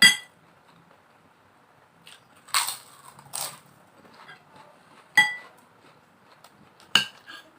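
Crunchy bites into crisp fried crackers, two loud crunches a little under a second apart. Metal spoon clinks against a plate with a short ring, at the start and twice more near the end.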